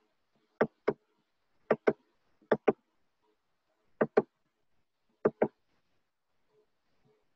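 Five evenly spaced double clicks from a computer button, each a press and a release, as the PDF is paged forward one slide per click.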